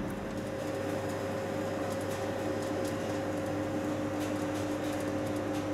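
TGV Réseau power car's cooling fans and auxiliary equipment running with a steady hum and two steady whining tones.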